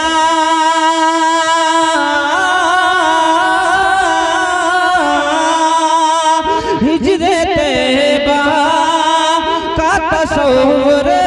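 A man's voice singing a naat, a devotional Urdu poem praising the Prophet Muhammad, into a microphone. He holds long drawn-out notes with wavering turns, and the melody steps to a new pitch about two seconds in and again around five and six and a half seconds.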